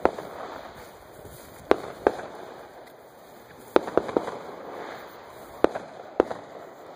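Fireworks going off: about eight sharp bangs and pops at irregular intervals, some in quick pairs.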